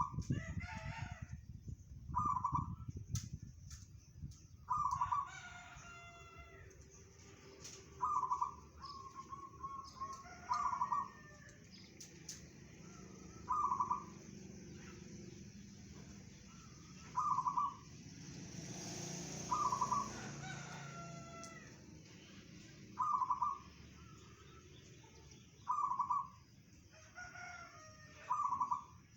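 Zebra dove (perkutut) cooing: short rolling coo phrases, repeated about every three seconds. Other birds chirp faintly between them.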